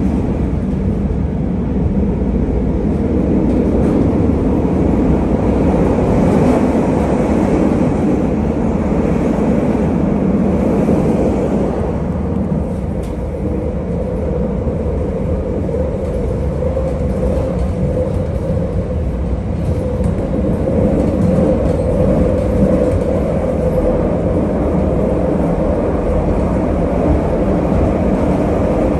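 Bombardier 5000-series Chicago 'L' rapid-transit car running at speed, heard from inside the car: a steady rumble of wheels on rail, with a faint steady hum that becomes clearer in the second half.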